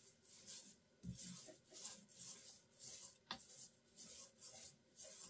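Faint, repeated soft swishes of a small paint roller rolling varnish back and forth over a wooden cabinet panel, about two strokes a second, with one small click about three seconds in.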